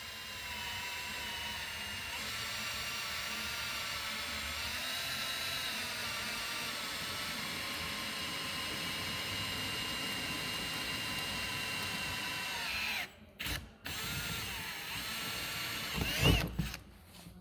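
Power drill with a 5 mm bit drilling a hole in the side body panel of a Toyota Land Cruiser Troop Carrier. The motor whines steadily, dipping slightly in pitch as the bit loads up, and stops about 13 seconds in. After a couple of short blips it runs briefly again, ending in a clunk near the end.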